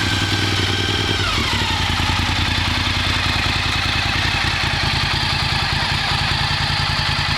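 Honda RC51's V-twin engine running at a raised idle; about a second in the revs drop and it settles into a steady, lower idle.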